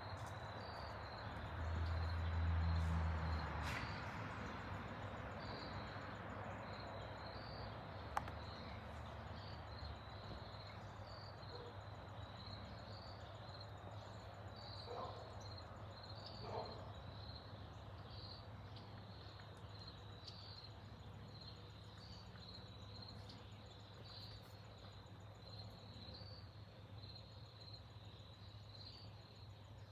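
Faint, steady distant roar of a Boeing 787-9 jet airliner at cruise altitude, slowly fading, with insects chirping in a regular pulse about once a second. A low gust of wind on the microphone swells for a second or two near the start.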